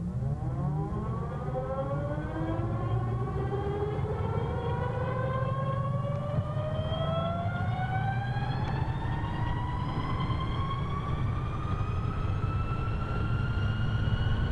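Vectrix VX-1 electric scooter's straight-cut reduction gear whining under acceleration from a standstill: one whine with several overtones that climbs quickly at first, then more slowly, as speed builds. A steady low rumble sits underneath.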